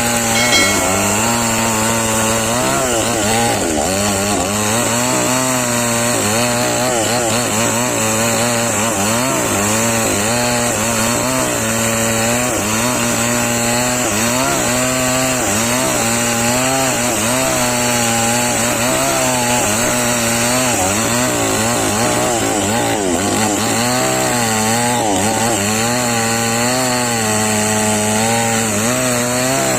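Chainsaw engine running at high revs through the cut, its pitch wavering up and down over and over as the load on it changes.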